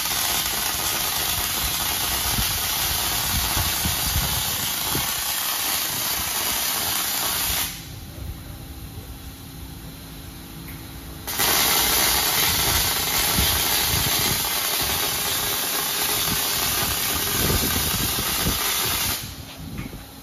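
A robotic MIG welding arc laying a weld on a steel frame, sizzling steadily. It stops for about three and a half seconds while the torch moves, then a second weld of about eight seconds runs and stops shortly before the end.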